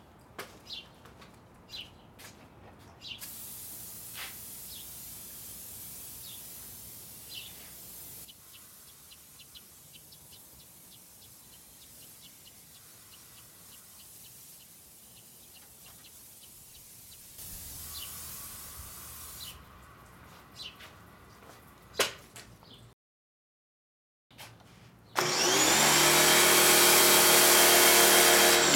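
Aerosol engine degreaser hissing from its can as it is sprayed, with birds chirping. Near the end a pressure washer runs loudly, its motor whining steadily as it sprays water.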